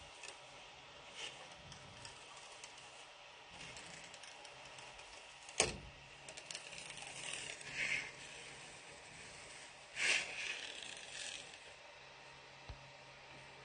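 Spatula prying a thin PETG print off a satin build sheet: faint scraping and crackling as the plastic peels away, with a sharp snap about five and a half seconds in and louder scrapes around eight and ten seconds.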